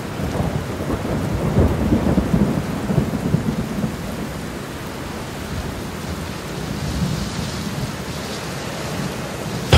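A rolling, rumbling noise like thunder with rain, strongest in the low range, swelling over the first couple of seconds and then easing off.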